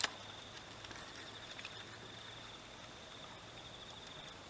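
Insects trilling in a steady high-pitched chirr, faint, with a single sharp click right at the start.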